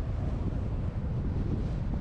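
Wind buffeting the microphone of a camera mounted on the roof of a moving truck: a steady low rumble, with the truck's road noise underneath.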